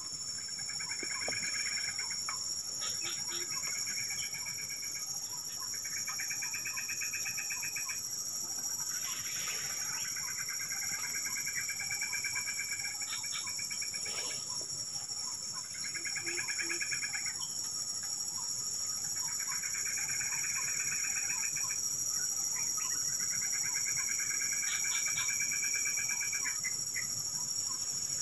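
Outdoor field ambience: a steady, high-pitched insect drone, with repeated buzzy trills of one to two seconds each from calling insects or frogs.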